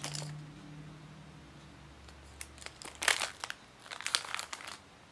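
Packaging crinkling in short rustling bursts as it is handled: once at the start, then around three seconds in and again a second later, with a few small clicks.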